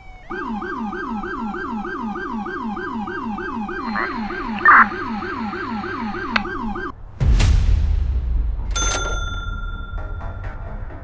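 Police siren in a fast yelp, sweeping up and down about three times a second, with a short louder blast about five seconds in; it cuts off suddenly near seven seconds. A deep boom with a high rushing sweep follows, then a sharp hit with a ringing tone as music begins.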